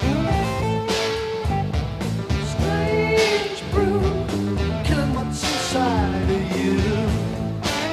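Rock music with guitar and a singing voice, playing steadily over a beat.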